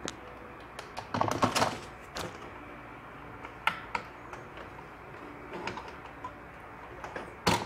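Scattered plastic-and-metal clicks and light knocks from a stock CPU cooler, with the processor still stuck to its base, being handled and turned over inside a PC case. A quick run of clicks comes about a second in, then single clicks every second or two.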